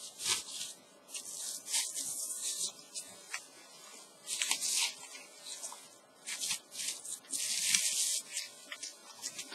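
Bubble wrap and clear plastic sleeves crinkling and rustling in several short bursts as they are handled, with scattered small clicks.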